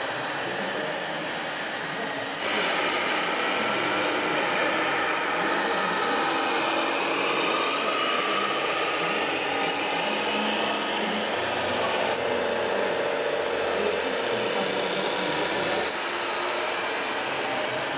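Radio-controlled model articulated dump trucks running: a steady whir and grind of small electric drive motors and gearboxes with a faint whine. It gets louder about two and a half seconds in and drops back near the end.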